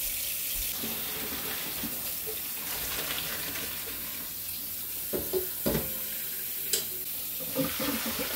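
Kitchen tap running steadily into a plastic colander in a stainless steel sink as a pot of hot boiled pasta water and bow-tie pasta is poured off into it, with a few knocks of the pot against the sink partway through.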